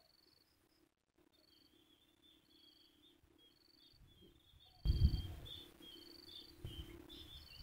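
Insects chirping in short high trills that repeat about once a second, over a faint steady hum. About five seconds in, a sudden low rumble on the microphone.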